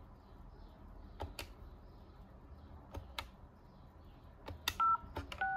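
Taps on the Orange GAMA802 desk phone's touchscreen dialer, in pairs about every second and a half, then two short two-tone keypad beeps near the end as the service code *#06# is keyed in to show the phone's IMEI.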